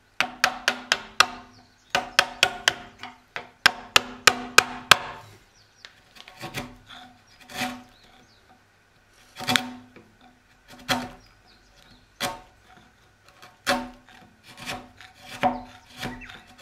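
A chisel being struck with a hammer as it cuts into a Japanese pine beam: quick runs of light, ringing taps for the first five seconds, then single strikes spaced a second or two apart.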